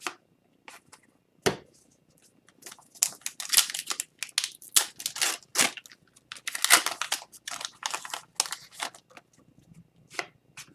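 Hockey trading cards being sorted through by hand: a dense run of quick papery slides and flicks through the middle, with a few isolated flicks before and after.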